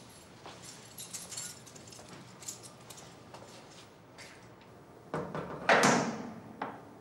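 A cell door being shut: small metal clicks and rattles, then a loud clunk as the door closes about five and a half seconds in, followed by one last click.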